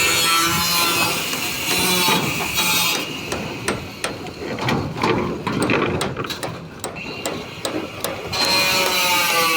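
Background music, which drops out about three seconds in for a run of irregular hammer strikes lasting about five seconds, then comes back near the end.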